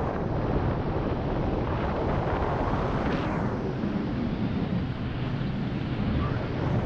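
Wind rushing past a GoPro's microphone in flight: a steady rush, with sharper gusts about three seconds in and again at the end.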